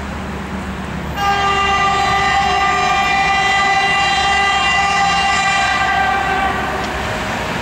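EP1M electric locomotive sounding its horn, one long steady note that starts about a second in and stops after about five seconds. Under it runs the low rumble of the approaching passenger train.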